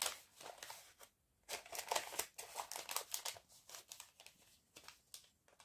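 Small kraft paper sachet crinkling and rustling in the hands as it is worked open: a run of light crackles, with a short pause about a second in.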